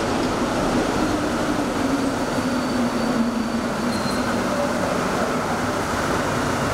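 Montreal metro train, rubber-tyred, arriving at the platform: a loud, steady rush of running noise with a low drone that falls in pitch midway through.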